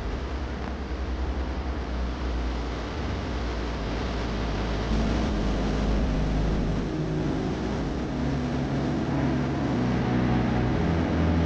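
Steady outdoor ambience of distant vehicle traffic, with a low rumble; a low hum comes in about halfway through.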